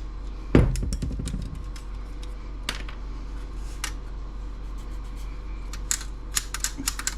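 Small metal and plastic parts of a laptop docking station being handled while it is taken apart: a low thud about half a second in, then scattered light clicks and clinks.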